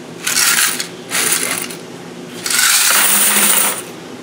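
Quarters rattling in a dryer's metal coin box as it is handled, then poured out of the box into a plastic bucket in one long metallic rush of coins lasting just over a second, about two and a half seconds in.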